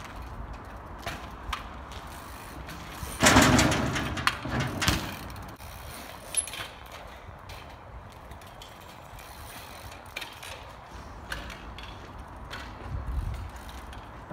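Trials bike being hopped about on concrete steps: the rear hub's freewheel ratcheting, with short clicks and knocks as the tyres set down on concrete. The loudest burst comes about three seconds in, with a second knock about a second after it and a smaller one near the end.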